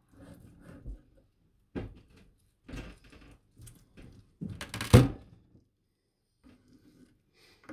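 A knife cutting through roast pork belly with crisp crackling skin on a cutting board: a string of crunching cuts and knocks of the blade on the board, the loudest about five seconds in.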